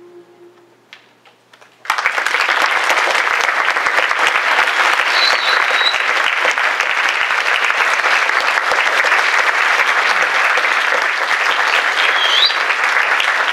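A choir's final sustained chord dies away, then about two seconds in an audience breaks into loud, steady applause, with a couple of short whistles over it.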